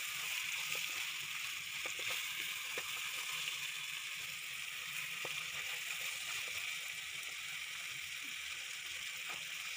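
Raw chicken pieces sizzling in hot oil with garlic, onion and tomato in an aluminium pot, a steady frying hiss. A wooden spatula knocks against the pot a few times as it stirs.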